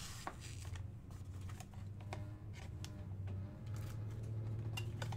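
Light clicks and rustles of sealed trading-card packs being handled and set down on a mat, over a steady low hum.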